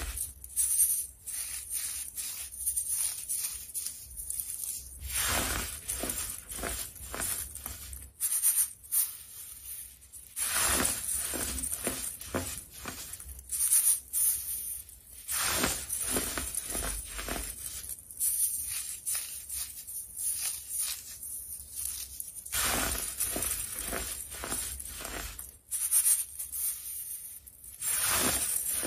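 Clumps of dyed baking soda crushed by hand and rubbed through a metal mesh sieve: dry crunching and crumbling with irregular crackles, louder crunches coming every few seconds as fresh handfuls are squeezed.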